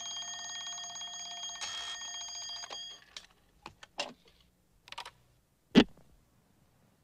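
Alarm clock bell ringing steadily, cutting off a little under three seconds in. It is followed by a few scattered mechanical clicks and knocks, the loudest a single sharp knock near the end.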